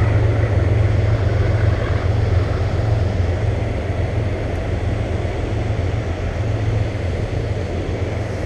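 Steady rushing noise of river water spilling over a low-head dam and running through rocky shallows, with a low rumble of wind on the microphone.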